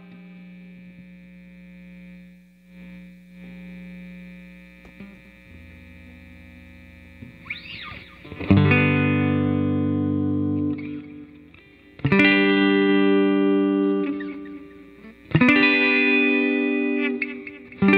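Electric guitar with a P90 pickup on its full winding, played through an amp with a clean-ish tone. Quiet sustained notes hang on for the first several seconds. From about eight and a half seconds in, full chords are strummed and left to ring, struck again about twelve and fifteen seconds in.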